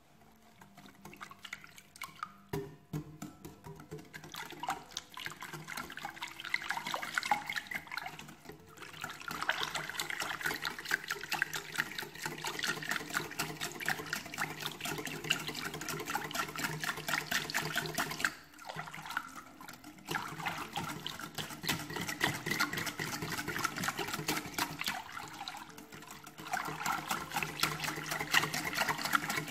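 Wire balloon whisk beating a runny egg, sugar and melted-butter mixture in a glass bowl: fast, continuous clinking and sloshing strokes, stopping briefly about three times.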